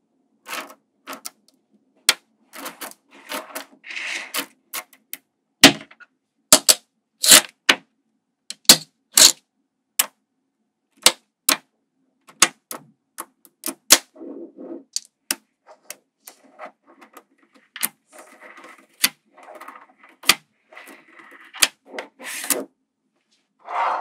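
Small magnetic balls clicking as they snap together. The sharp clicks come at irregular spacing, with a few short stretches of softer clattering as strips of balls are pressed and rolled into place.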